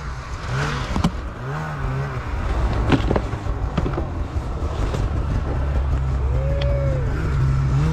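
Polaris snowmobile engine running at low revs, its note wavering up and down and slowly getting louder toward the end, with a few short knocks.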